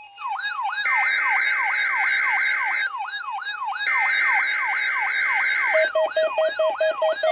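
Electronic siren-like alert tone: a fast yelp of falling pitch sweeps, about four a second, with a steady high tone cutting in and out over it. In the last second and a half a rapid pulsing lower beep joins in.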